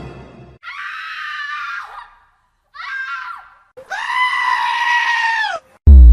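Three loud, high screams: a short one, a shorter one, then a long held one of about two seconds. A sudden, very loud deep bass blast cuts in right at the end.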